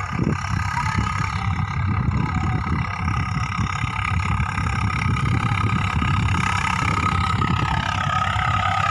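Swaraj 855 tractor's diesel engine running steadily, with a fast, even low-pitched throb and a steady higher whine above it.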